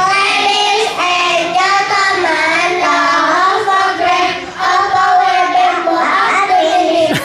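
A group of children singing a song together in unison, holding long notes.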